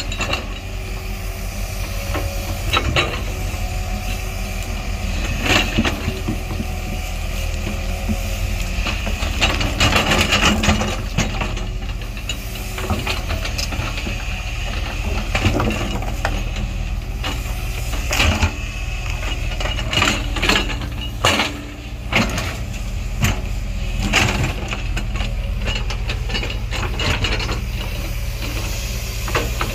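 Diesel engine of a JCB 140 tracked excavator running steadily under load while its bucket digs through stony soil and roots, with irregular knocks, scrapes and cracks of rock and wood.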